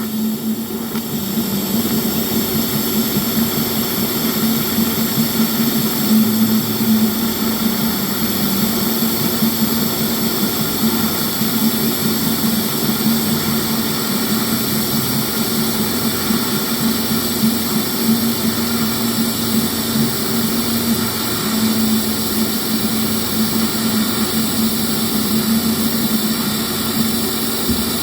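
TIG welding arc burning steadily during a weld, a continuous even buzz with a strong steady hum.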